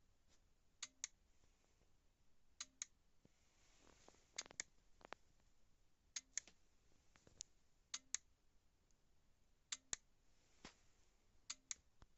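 Relay on an LG washing machine's control module clicking in pairs, about every two seconds, each pair starting with a brief hum, while the machine will not switch on: the module keeps cycling instead of powering up.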